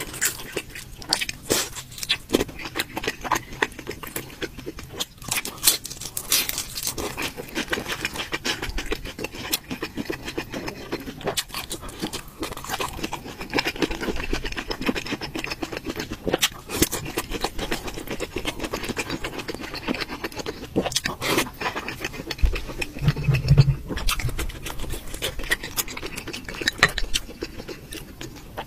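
Close-miked eating sounds: wet chewing and slurping of noodles and stew, with many small clicks of chopsticks against a ceramic bowl. A low thump about two-thirds of the way through is the loudest moment.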